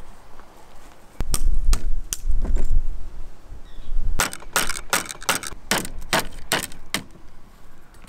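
Sharp metallic taps and knocks on an olive shaker's head, working at a broken carbon-fibre finger piece stuck inside. There are a few taps, then a quicker run of about nine. A low rumble lies under the first taps.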